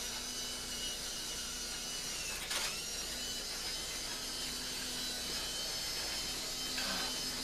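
Battery-powered toy train running around its plastic track, its small electric motor and gears whirring steadily. There is a brief click about two and a half seconds in.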